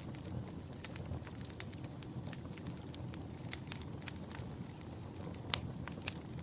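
Wood fire crackling in a fireplace: irregular snaps and pops over a low, steady rumble of burning, with the sharpest pop about five and a half seconds in.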